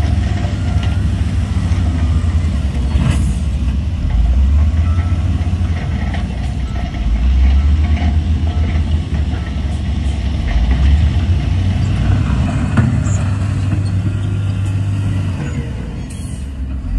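Heavy diesel machinery engine running under load, its low drone rising and falling in pitch several times as it works.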